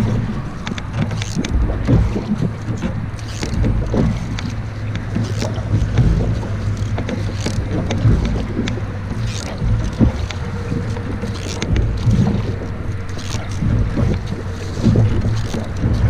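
A single-blade canoe paddle stroking through the water, a short splash and swish of the blade about once a second. Wind rumbles on the microphone underneath.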